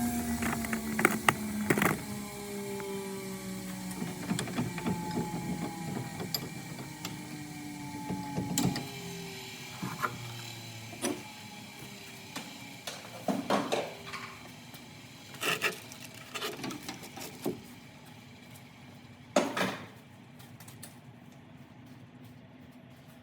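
A power tool's motor winding down after being switched off, its pitch falling steadily over several seconds. Then scattered clicks and knocks of tools and metal being handled, with quiet stretches between.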